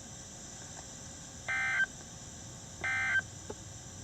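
Two short multi-tone beeps like touch-tone (DTMF) signals, each about a third of a second long and about a second and a half apart, over a steady faint hiss. They are carried on the NOAA Weather Radio broadcast and play through a weather radio's speaker.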